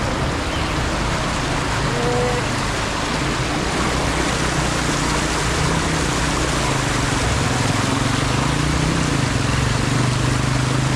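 Fast mountain stream rushing over rocks: a steady, even rush of water.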